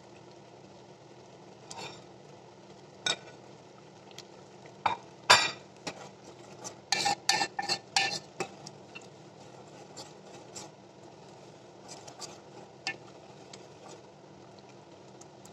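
Metal spoon stirring a thick curry in a metal pot, scraping and clinking against the pot's sides and bottom. The knocks come in a dense cluster from about five to eight seconds in, then more sparsely.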